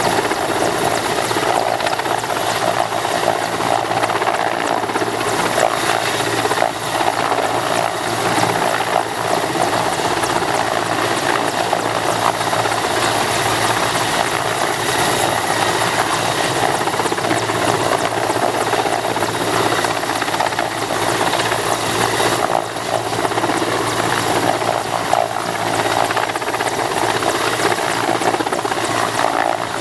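Mil Mi-8/Mi-17-family twin-turbine transport helicopter hovering low, its main rotor beating steadily over a continuous high turbine whine.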